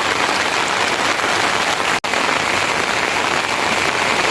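Steady rain falling, with a momentary break in the sound about two seconds in.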